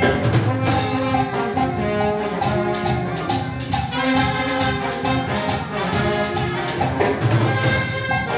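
Band music with brass instruments carrying the tune over a steady percussion beat.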